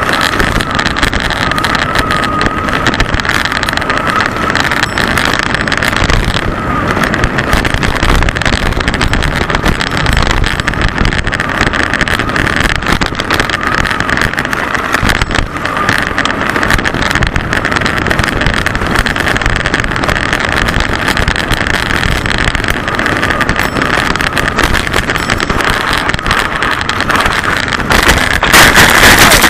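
Steady wind and rattle noise on a mountain bike's action camera during a fast descent over a rough dirt trail, with constant clattering from the bumps. Near the end the noise peaks in a harsher jumble as the rider crashes.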